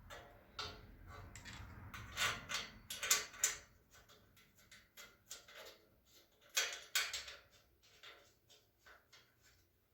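Irregular clicks and light knocks of metal shelving parts being handled and fitted together, with a cluster of louder knocks a couple of seconds in and another about six and a half seconds in.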